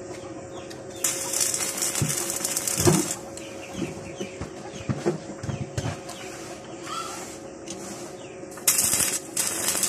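Stick arc welding: the crackling hiss of the arc as a short weld is struck about a second in and held for about two seconds, then struck again near the end, with a few light knocks between and a steady hum underneath.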